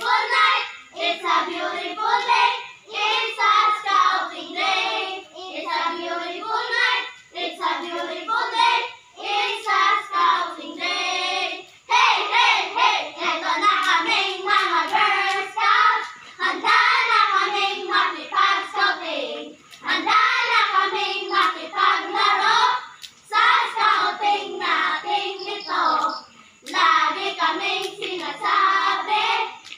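A group of young voices chanting and singing a patrol yell together in unison, in short phrases with brief pauses between them.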